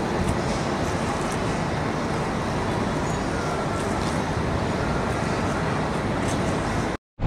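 Steady outdoor rumble of city traffic and harbour noise, even and unchanging, cutting off suddenly near the end.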